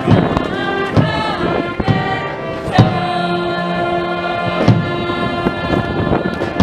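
Brass band playing a cheer song, with long held chords and strong drum beats about once every one to two seconds.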